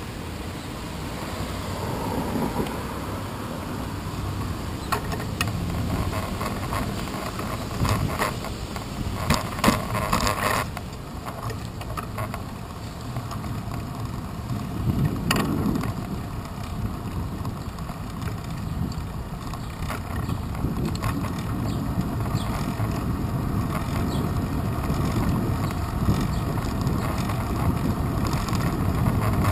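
Bicycle riding heard through a handlebar-mounted action camera: steady wind on the microphone and road rumble from the tyres. Clusters of rattling knocks come about 8 to 11 seconds in and again at about 15 seconds.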